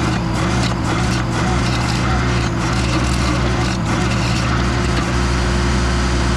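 Toro stump grinder attachment on a Case TL100 mini skid steer grinding a stump: a continuous grinding of wood chips over the machine's steady engine hum.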